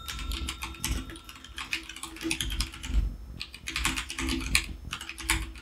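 Typing on a computer keyboard: quick, irregular keystroke clicks in runs, with a short pause about three seconds in.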